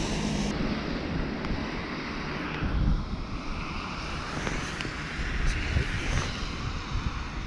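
Steady low outdoor rumble, with a few light clicks of tackle handling and a soft thump about three seconds in.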